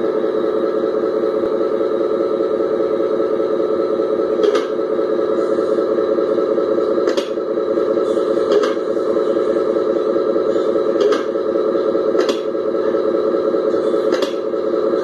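A model Scania tow truck's engine sound module playing a steady diesel idle through its small speaker, with about six sharp clicks scattered through it.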